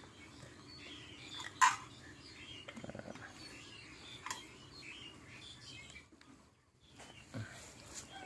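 Small birds chirping over and over, with a sharp knock about a second and a half in and a couple of fainter knocks later.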